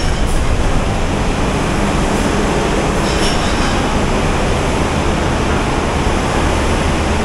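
Awam Express passenger train running on the track: a steady, loud rumble of the moving coach and its wheels, with a few faint clicks.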